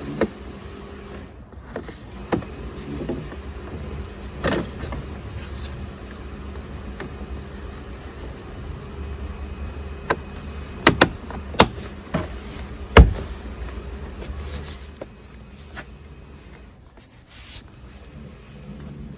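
Scattered knocks and clicks from work on a Land Rover Freelander 2's rear door as it is put back together, the sharpest knock about 13 seconds in, over a steady low hum.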